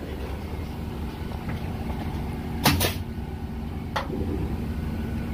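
Construction-site noise at a wood house frame: a steady low rumble, with a quick pair of sharp cracks near the middle and a single crack about a second later.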